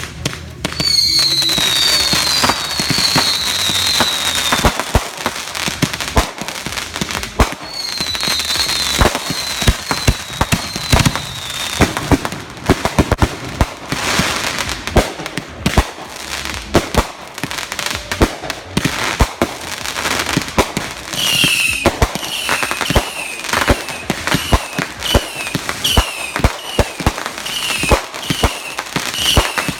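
Backyard consumer fireworks going off: dense, rapid crackling and popping bangs throughout, with runs of short, high, falling whistles repeating about once or twice a second at several points.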